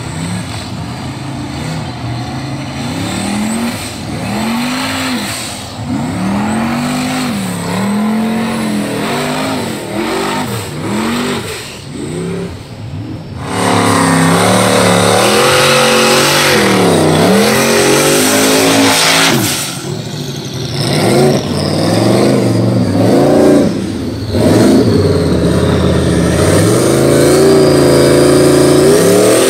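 Formula Offroad hill-climb race car engine revving hard, its pitch swinging up and down again and again as the car claws up a steep dirt slope. About halfway through the engine noise gets much louder and fuller as a car climbs closer.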